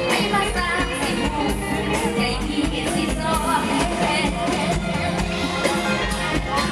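Live amplified mor lam music: a woman sings lead into a microphone over the band's steady drum beat and bass.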